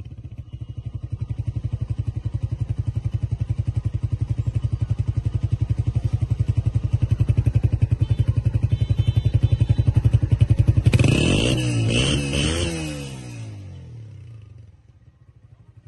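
Honda CG125 single-cylinder four-stroke engine running through an aftermarket silencer, idling with a steady, even exhaust pulse. About eleven seconds in it is blipped up and down a few times, then the sound dies away.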